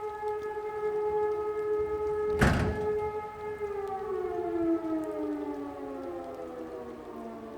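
Fire-brigade siren sounding a test alarm: a steady tone until about three and a half seconds in, then winding down, its pitch falling slowly. A single loud thump about two and a half seconds in.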